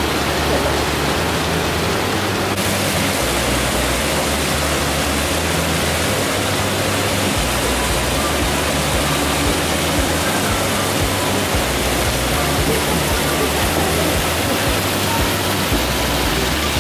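Hot spring water rushing steadily through the Yubatake's wooden channels and down its falls, a continuous even wash. Music with shifting bass notes plays underneath.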